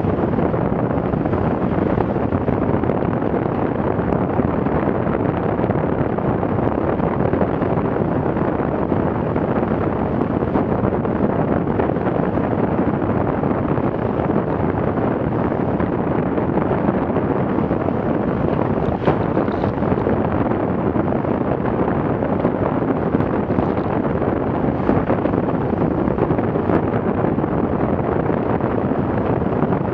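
Steady wind buffeting the microphone over the rush of water and spray along the hull of a Farrier F-82R trimaran sailing at about 9 to 12 knots through high waves.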